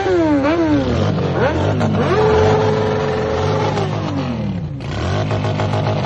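Sport motorcycle engine revved in quick up-and-down blips, then held at high revs for about a second and a half. The revs then drop back and it is blipped again.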